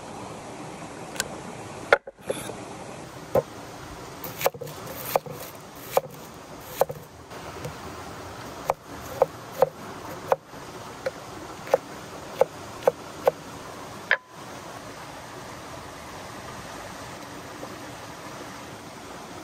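A heavy cleaver knocking sharply on a wooden board, about seventeen times over some thirteen seconds, as it chops and slices food, including a lemon, over the steady rush of a shallow rocky stream. The knocks stop about two-thirds of the way through and only the stream runs on.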